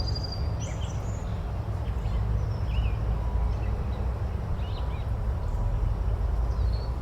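Forest ambience: a steady low rumble and hiss, with short bird chirps and calls scattered throughout, a cluster near the start and single calls later.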